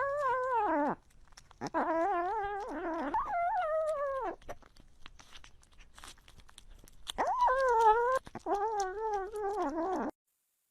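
A pet's long, wavering cries, five in a row: three close together, a pause of about three seconds, then two more.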